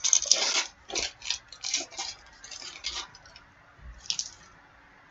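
Crinkling and rustling of a hockey card pack's wrapper being torn open and cards being handled, in short irregular bursts through the first three seconds, with one more about four seconds in.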